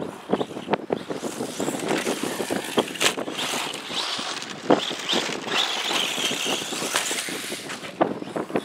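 Traxxas Slash 4x4 VXL electric RC short-course truck running on a dirt track, its brushless motor whining high in the middle and its tyres throwing gravel, with many short sharp knocks from the truck over the rough ground.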